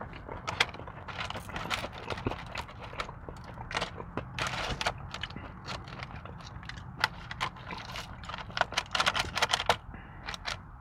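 Close-up eating sounds: wet chewing, lip smacking and crunching of food, in a run of short irregular clicks and crackles.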